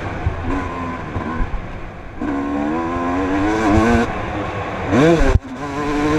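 Motocross bike engine revving hard along a dirt track, its note climbing and dropping with the throttle and gear changes. Near the end it rises sharply, cuts out for a moment, then runs on steadily.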